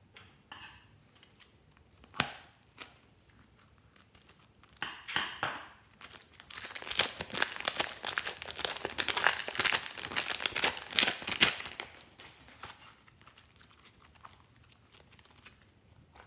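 Thin plastic piping bag crinkling and tearing as it is peeled off a wad of slime: a dense crackling that builds about five seconds in and eases off a few seconds before the end, with scattered fainter clicks either side.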